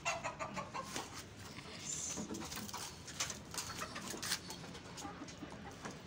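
Hens clucking, with a quick cluster of calls in the first second and scattered clucks after, mixed with sharp knocks and scuffling as they are let out of their coop.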